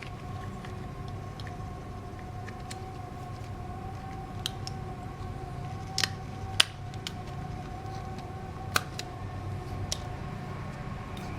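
A few sharp clicks and taps of small phone parts and tools being handled while a smartphone is put back together, loudest about midway, over a steady background hum.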